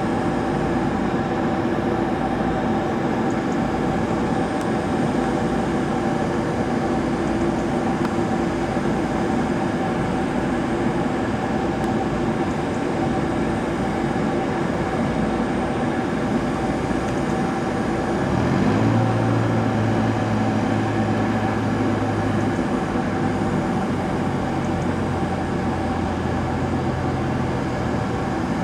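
Embraer E195-E2's turbofan engines running steadily at low power, a continuous drone with a steady whine. About two-thirds of the way through, a deeper hum rises in pitch and then holds alongside it.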